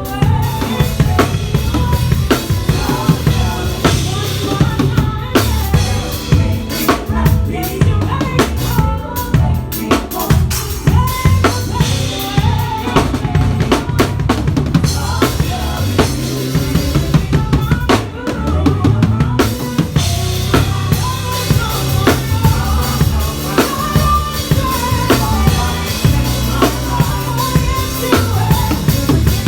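Live acoustic drum kit played busily and without a break: kick drum, snare and rimshot hits in a dense groove with frequent fills.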